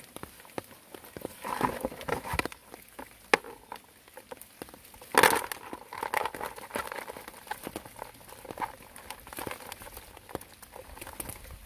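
Mesh funnel trap being shaken out over a plastic basin: the netting rustles and small fish, freshwater shrimp and snails drop onto the plastic in irregular taps, with one louder knock about five seconds in.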